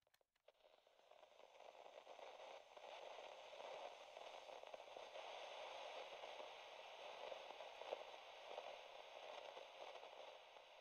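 O-gauge model diesel locomotive running on three-rail track with its sound system dead: only a faint, steady whir of the motor and wheels, fading in over the first two seconds.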